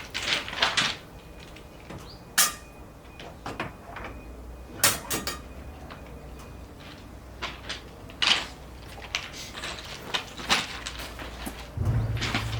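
Rail-welding gear being handled: a string of sharp clanks and knocks, each a second or two apart. Near the end a low steady rumble starts up.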